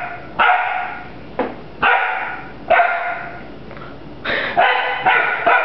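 Bouvier des Flandres puppy barking at a broom: about seven sharp barks at uneven spacing, with a quicker run of them in the last second and a half. Each bark trails off in a short echo.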